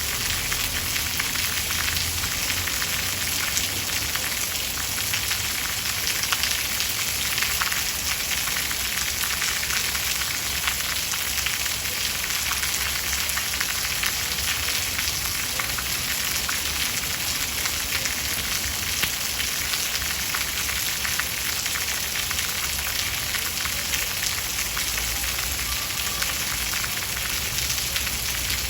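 Steady rain falling, a dense even hiss of countless small drop impacts with no thunder.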